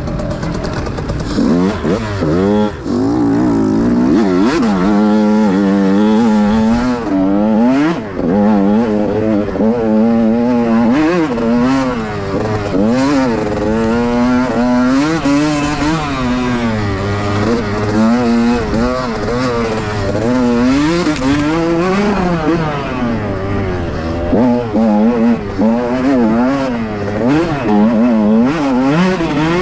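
Dirt bike engine under race throttle, revving up and down every second or so, with a few sharp knocks mixed in.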